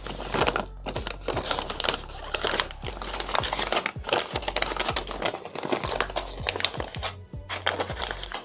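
A sheet of paper being folded and rolled into a tube by hand, crinkling and rustling in irregular bursts, over background music.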